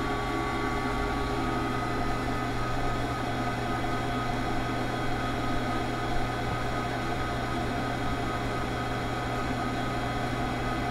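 Metal lathe running steadily, belt-driving a Model T Ford crankshaft around inside its block to fit the connecting rods and main bearings. A constant hum with a steady tone throughout.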